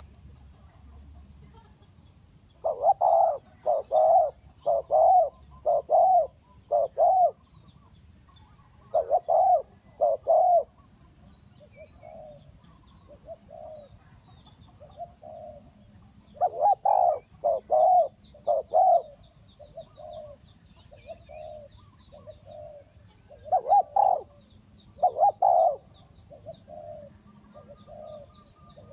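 Spotted doves cooing: repeated phrases of low, rounded coos, loud phrases alternating with fainter ones.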